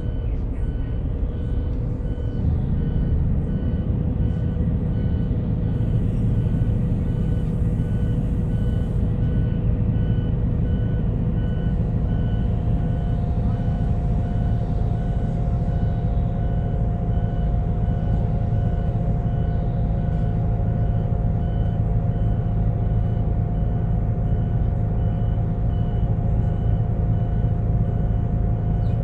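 Inside the cabin of a Daewoo FX116 coach under way, its rear-mounted Doosan DL08S inline-six turbodiesel running with a steady low drone. A steady whine sits above the drone, with a second, higher whine joining about halfway through, and a faint beep repeats evenly throughout.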